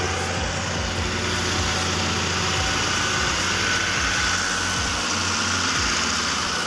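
Caterpillar 320D excavator's diesel engine running steadily close by, with a faint high whine about halfway through.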